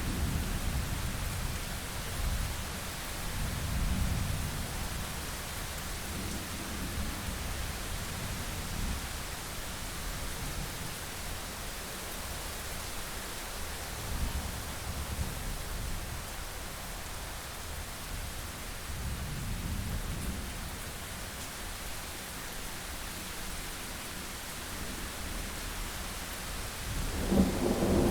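Thunderstorm: steady rain hiss with low rolls of distant thunder swelling and fading, and a louder thunderclap rumble building about a second before the end.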